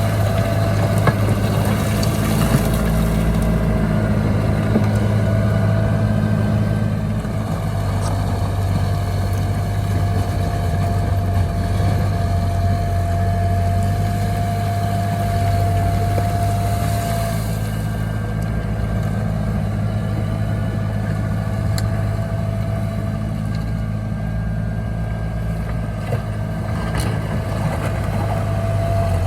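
Heavy diesel engine of a bulldozer running steadily, a low hum with a steady whine above it and a few light knocks.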